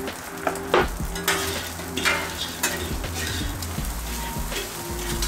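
Fried rice sizzling on a hot flat-top griddle while a metal spatula and fork stir it, scraping and clicking against the steel surface at an irregular pace.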